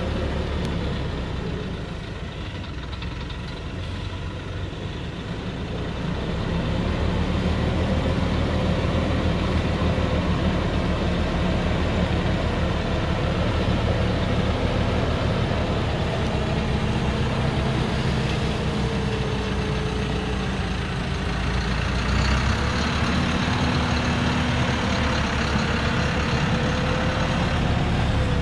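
Diesel engine of a truck loaded with acacia logs, running under load as it crawls along a muddy dirt track. It grows louder about six seconds in as the truck comes closer, and in the second half the engine note rises and falls.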